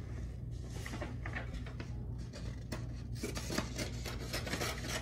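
Scissors cutting paper and the paper being handled: irregular short snips and scraping rustles over a steady low hum.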